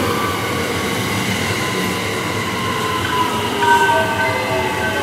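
JR West 321 series electric train pulling into the platform and slowing, with wheel and running noise under its traction motors' electric whine, which falls in pitch as the train brakes.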